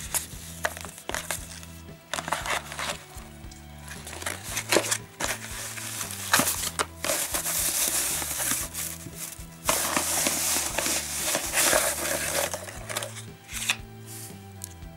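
Paper packaging rustling and crinkling as a box is opened and unwrapped by hand, loudest about six to eight and ten to twelve seconds in, over background music.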